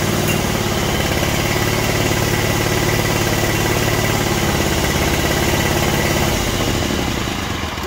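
Kawasaki FH500V V-twin engine on a riding mower running steadily after a new ignition coil and wiring harness were fitted. About six seconds in it is shut off and runs down.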